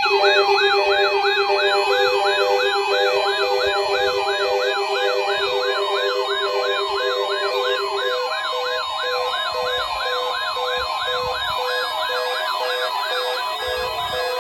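Weather radio receivers' electronic alarms sounding together for a Required Weekly Test. A fast siren-like warble sweeps up and down about three times a second over repeated beeps. A low pulsing tone stops about halfway through, and a steady tone carries on.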